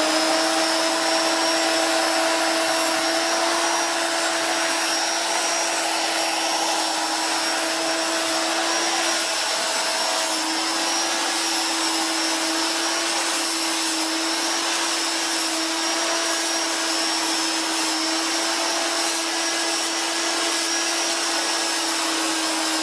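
Electric angle grinder with an abrasive disc running at a steady speed, grinding the rusted steel of a forged broadaxe head: a steady motor whine over the hiss of the disc on metal.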